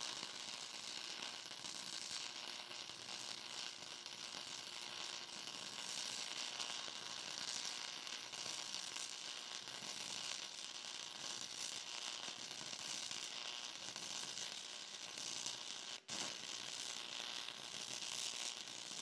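Stick (shielded metal arc) welding with a 1/8-inch 5P Plus E6010 rod on AC: the arc sizzles and crackles steadily, breaking for an instant about 16 seconds in and then running on. The rod is not meant for AC but stays lit on this welder.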